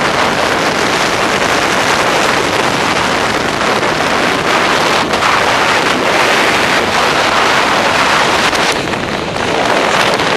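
Airflow of paragliding flight rushing over the microphone: a loud, steady wind rush with small rises and falls.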